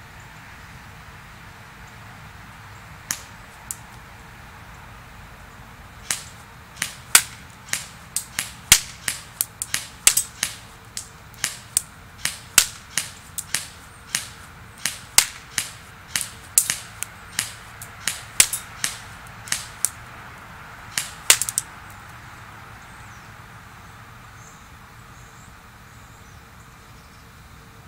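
CYMA CM041 MP5 airsoft electric gun firing single semi-auto shots as sharp cracks: two about three seconds in, then a steady string of about two a second, ending in three quick shots.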